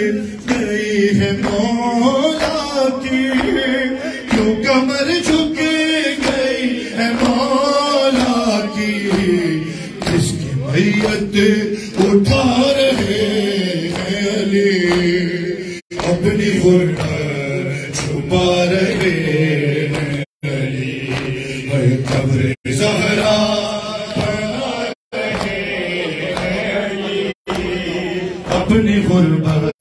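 Male voices chanting a Urdu noha (mourning lament) in a slow, drawn-out melody, with the hand slaps of chest-beating (matam) keeping time. The sound drops out for an instant several times in the second half.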